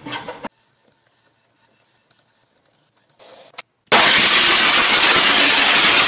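A hand-held water spray gun jetting water onto an emulsion-coated screen-printing screen, washing out the stencil. There is a brief spurt a little after three seconds in, then a loud, steady hiss of spray from about four seconds in.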